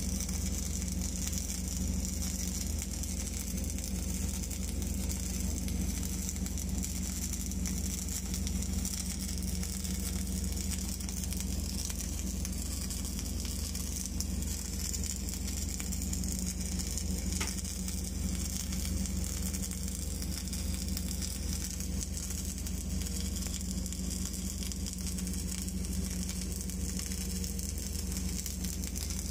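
Wire-feed welding arc on a steel pipeline joint, its torch carried around the pipe by an automatic orbital welding carriage: a steady, unbroken sizzling crackle, with a steady low hum underneath.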